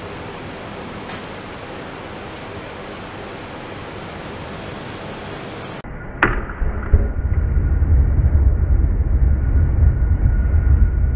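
Propane forge being lit: a steady hiss, then about six seconds in a sharp pop as the burner ignites. After the pop the burner runs with a loud, steady low rumble.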